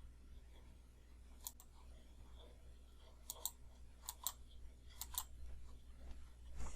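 Faint computer mouse clicks: four quick double clicks, each a press and release, spaced about a second apart, as points of a CV curve are placed in 3D modelling software. A low steady hum sits underneath.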